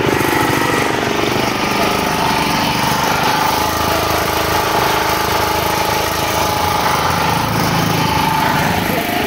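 Small portable petrol generator, the one that powers an electrofishing stunner, running steadily at a constant speed.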